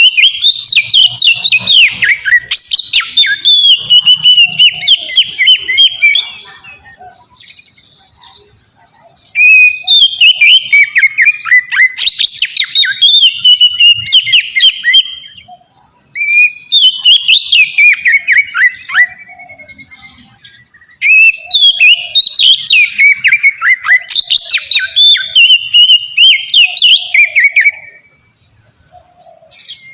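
Oriental magpie-robin (kacer) singing loud, varied whistled song in long open phrases (ngeplong), four bouts of several seconds each with short pauses between.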